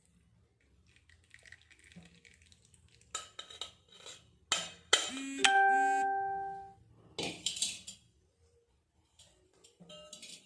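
Metal pot, strainer and bowl knocking together as a decoction is strained: a few clinks, then a loud clang about five seconds in that rings with a clear pitch for nearly two seconds, and another clatter of metal soon after.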